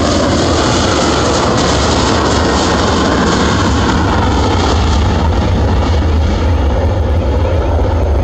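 Boeing 737-800's two CFM56-7B turbofan engines at takeoff thrust: loud, steady jet noise as the airliner rolls, lifts off and climbs away. The higher hiss thins near the end.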